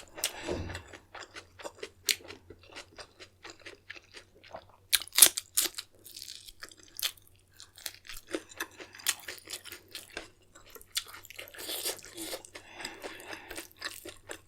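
Close-miked chewing of a mouthful of food, with irregular crisp crunches and wet mouth sounds and a few louder crunches along the way.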